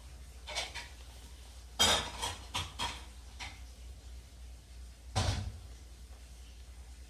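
A handful of short knocks and clatters, most likely hard objects being handled and set down, in a quick cluster about two seconds in and once more about five seconds in.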